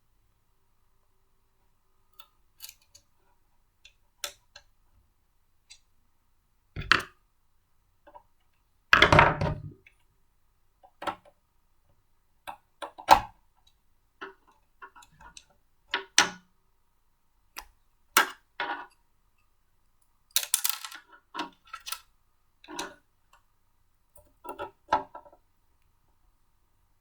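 Blender parts being handled and fitted together by hand: irregular clicks, knocks and short rattles with gaps between them, the loudest a rattle of about a second near nine seconds in.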